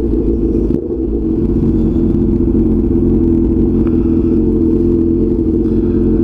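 Honda CB1000 motorcycle's inline-four engine running at a steady, even pitch while the bike rides slowly through a turn, heard from the rider's position.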